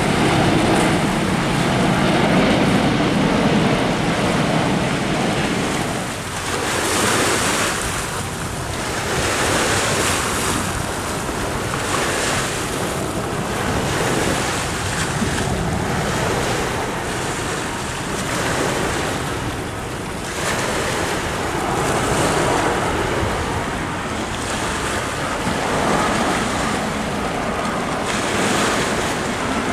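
Wind buffeting the microphone and surf washing on the shore: a steady rushing noise that swells every couple of seconds. In the first few seconds a low jet-engine rumble from an airliner on approach fades out.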